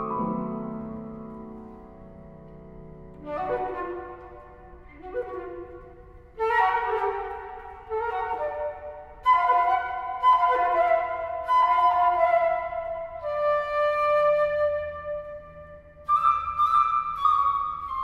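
Flute and piano playing classical chamber music: a piano chord dies away, then the flute comes in about three seconds in with phrases of held notes over the piano.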